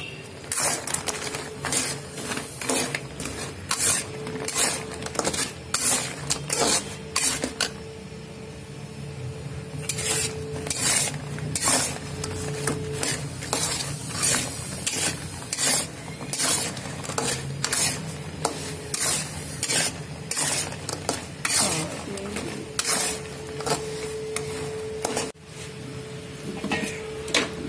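Metal spatula scraping and knocking against an aluminium kadai in irregular strokes, about two a second with a short lull partway through, as fried banana pieces are stirred through hot jaggery syrup to coat them for sharkara varatti.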